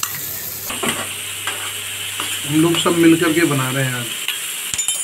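Sliced onions and masala sizzling in hot oil in an aluminium kadhai, stirred with a perforated metal spatula that scrapes and clicks against the pan.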